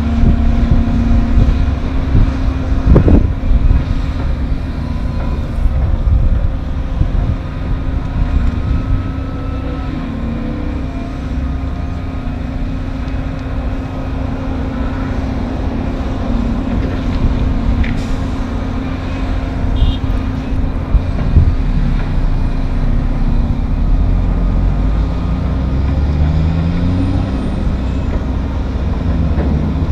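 Diesel engines of an excavator and a dump truck running steadily with a deep rumble as the excavator loads the truck, with a single thud about three seconds in. Near the end a truck engine revs up in rising steps as the loaded truck pulls away.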